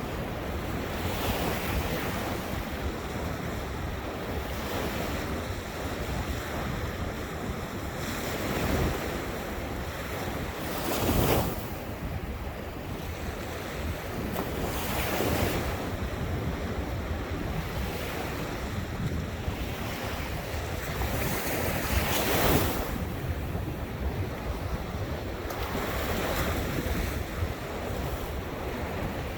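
Ocean surf, waves breaking on the shore every few seconds, with wind rumbling on the microphone. Two breaks stand out as the loudest, about a third of the way in and again about three-quarters through.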